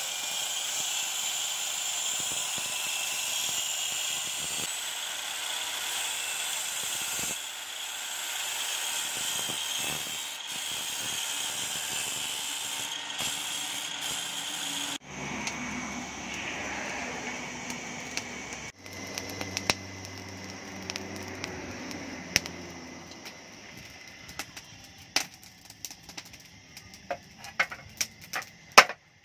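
Forge air blower running steadily, a whine over a rush of air feeding the charcoal fire. Near the end, scattered sharp metallic taps and knocks.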